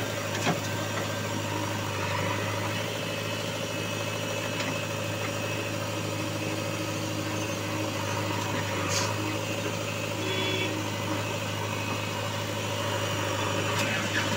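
JCB 3DX backhoe loader's diesel engine idling steadily, with a few light clicks over it.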